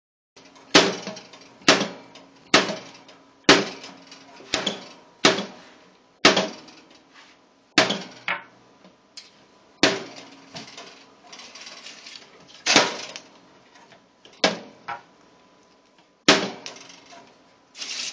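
A metal toaster oven clanking as a cat paws and pries at it to get it open. There are about a dozen sharp metallic clanks, each with a short ringing after it, roughly one a second at first and then further apart. A faint steady hum runs underneath.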